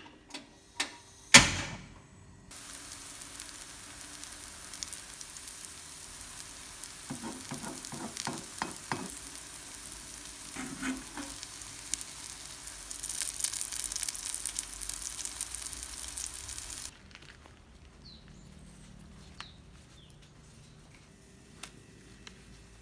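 A few light taps and one sharp knock in the first two seconds. Then tofu-and-egg omelette batter sizzles steadily in oil in a nonstick frying pan, with a metal slotted spatula scraping and pressing it now and then. The sizzle cuts off suddenly about three-quarters of the way through.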